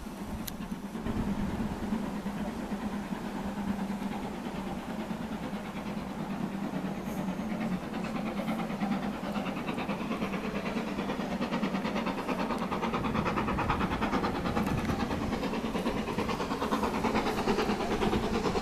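Steam locomotive approaching along the line, its exhaust beats coming through as a quick, regular chuffing that grows louder over the second half.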